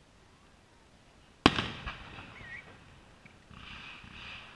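Fireworks display: a single loud aerial shell burst about a second and a half in, ringing out with an echoing tail and a few small pops after it. A steady rushing noise sets in near the end.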